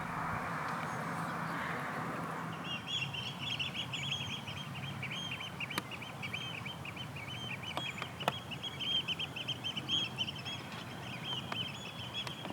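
A steady background hiss, then from about three seconds in a long run of rapid, high-pitched bird chirps, many per second, with a few sharp clicks.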